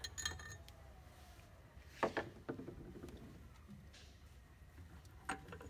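Metal gearbox selector parts of a Vincent Black Shadow engine clinking and knocking against the case as they are worked out by hand: a sharp clink about two seconds in with a couple of softer knocks after it, and another clink near the end that rings briefly.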